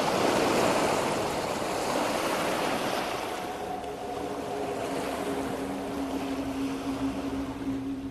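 Sea waves washing up onto a sandy beach: a steady rushing surf, loudest in the first second or so and then easing slightly.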